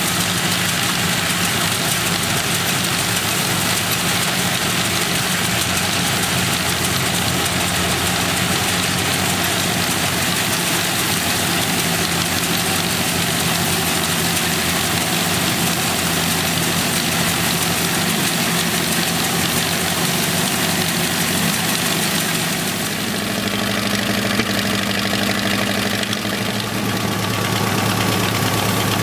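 1931 Gleaner combine running, its Ford Model A four-cylinder engine driving the threshing works and pickup header with a steady mechanical clatter. The running note shifts about three-quarters of the way through.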